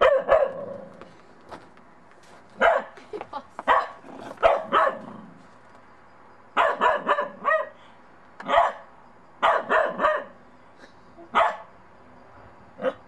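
Bedlington terrier puppy barking: a dozen or so short, sharp barks in bursts of one to four with brief pauses between, the wary barking of a puppy unsure of a snowman.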